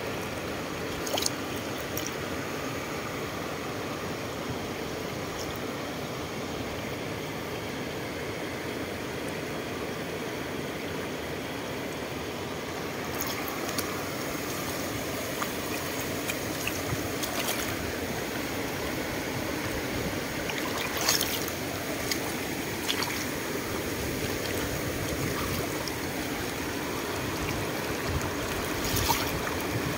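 Water flowing steadily through a partly clogged drain gate, a little louder after the middle. A few brief splashes mark the moments when plastic and moss are pulled from the gate by hand.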